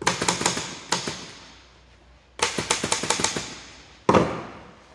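Pneumatic upholstery staple gun firing staples into a wooden recliner-back frame to fasten new webbing: a quick run of shots, a single shot about a second in, then a faster run of about ten shots. Just after four seconds the stapler knocks once as it is set down on the table.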